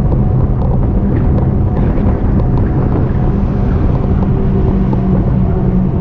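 Riding noise from an e-bike under way: steady wind buffeting the microphone over road rumble, with a steady low hum and a few faint ticks.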